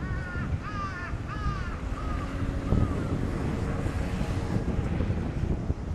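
A crow cawing about five times in quick succession, the calls growing fainter, over a steady low wind rumble on the microphone.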